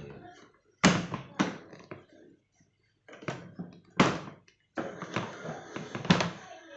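Several sharp knocks and clunks from a plastic trolley toolbox being handled, with some rattling between them.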